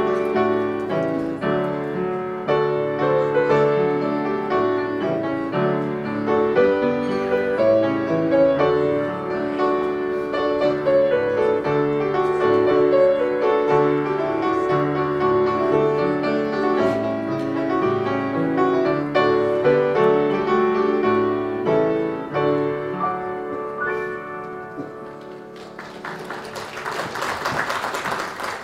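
Solo grand piano playing a slow, flowing piece of chords and melody. Near the end the playing fades and a few seconds of applause follow.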